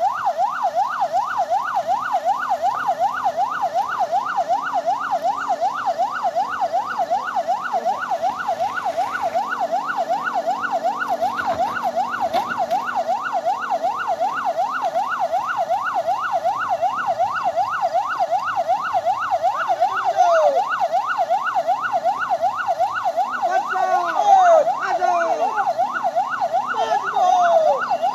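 Electronic siren sounding continuously in a fast up-and-down sweep, about three cycles a second, with a few short falling whistles in the last few seconds.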